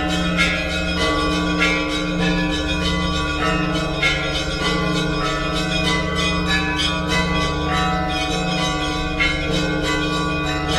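Russian Orthodox church bells ringing (zvon): a quick, continuous run of strikes on several bells of different pitch, over steady lower bell tones ringing on underneath.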